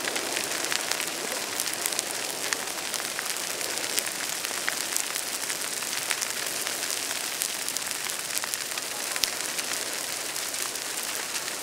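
Dry grass and brush burning in a wildfire burnout: a steady hiss of flames with many sharp crackles and pops scattered through it.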